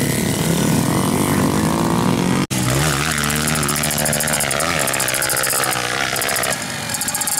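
Trail motorcycle engines revving on a steep dirt hill climb, rising and falling in pitch as the riders work the throttle. A sudden brief gap about two and a half seconds in.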